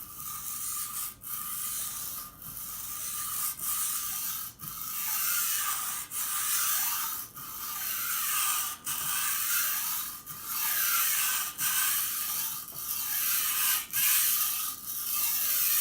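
A long steel knife blade being stroked back and forth over a wet coarse 220-grit Japanese water stone, a gritty grinding hiss with a short break at each change of stroke, about one stroke a second, and a steady faint ringing tone underneath. This is the coarse stage of sharpening, grinding metal away to raise a new edge and burr.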